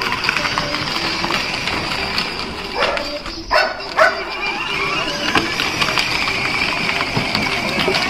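Children's battery-powered ride-on jeep driving, its electric motors and gearboxes whining steadily, with a few brief louder sounds around three and four seconds in.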